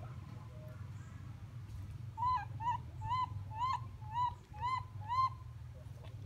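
A series of seven short, arched animal calls at an even pace of about two a second, starting about two seconds in.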